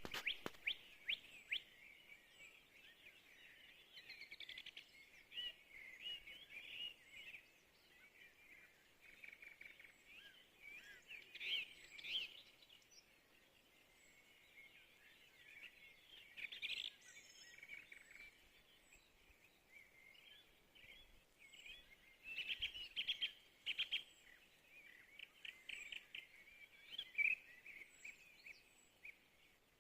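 Dawn chorus of songbirds: many birds chirping and trilling at once, steadily and faintly, with louder clusters of calls every few seconds.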